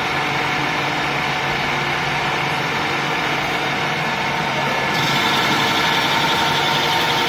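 16K25B screw-cutting lathe running steadily, a machine hum with several steady whining tones from its drive. About five seconds in it gets a little louder and a higher hiss joins in.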